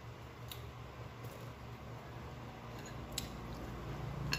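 A few faint, sharp clicks from eating and handling food, over a steady low hum; the loudest click comes near the end.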